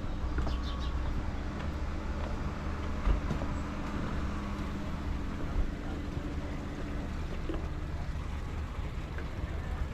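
A large engine hums steadily over a low rumble, and the hum fades away about seven seconds in. There are two brief thumps, about three and five and a half seconds in.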